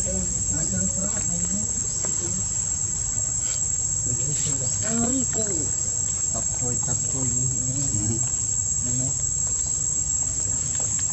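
Steady, high-pitched insect drone, a continuous whine that holds level, with faint voices murmuring underneath.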